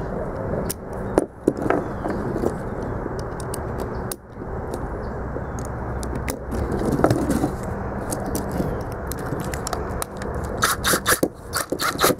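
Small metal tool pieces (socket, U-joint, adapter and extensions) clicking and scraping as they are fitted together by hand, over a steady low rumble. Near the end comes a quick run of sharp clicks as the extension is tightened into the DeWalt cordless drill's chuck.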